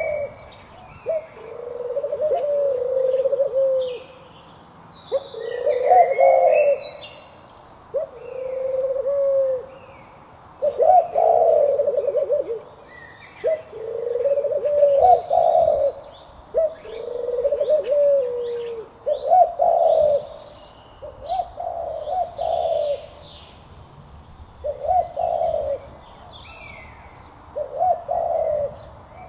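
Pigeons cooing over and over, each low coo lasting a second or two, with fainter high chirps of small birds over them.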